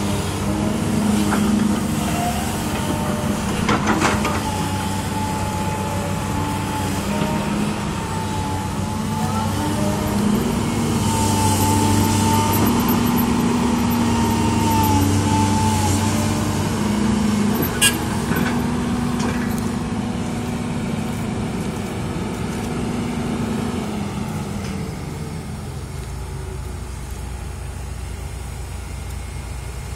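LiuGong 920D excavator's diesel engine running under varying hydraulic load, its note stepping up and down, with a thin whine above it and two sharp metallic knocks. Near the end the engine drops back to a lower, steady idle.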